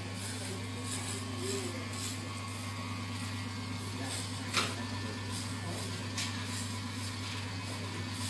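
Cordless electric hair clipper running with a steady low hum while cutting into long hair, with a sharp click about four and a half seconds in.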